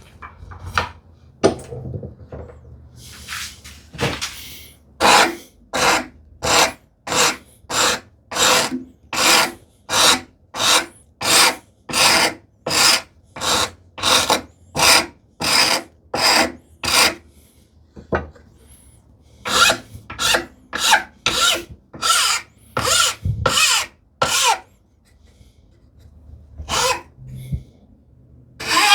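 Quick, even strokes of a hand file across the end of a wooden tambour slat, about two a second, easing its corners so the slat won't catch in its curved track. Partway through the strokes stop for a moment, then carry on.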